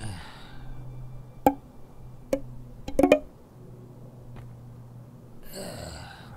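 A short whoosh, then a few light wooden knocks about a second and a half and two seconds in, and a clunky double knock about three seconds in, over a low steady hum. A brief rustling swish comes near the end.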